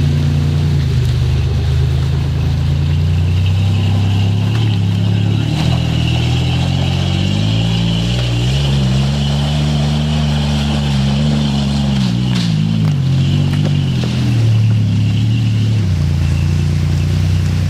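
Engine of a tube-frame rock buggy running under load as it crawls over rocks and mud; the engine speed rises about halfway through, holds for a few seconds, then drops back.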